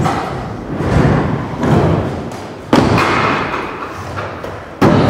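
Stunt scooter wheels rolling over wooden skatepark ramps, with two sudden thumps as the scooter hits the ramp, one a little under three seconds in and another near the end.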